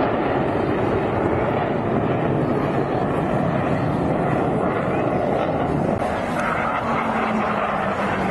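Blue Angels F/A-18 Hornet jets heard at a distance as a steady roaring rumble. A faint steady low hum joins in after about six seconds.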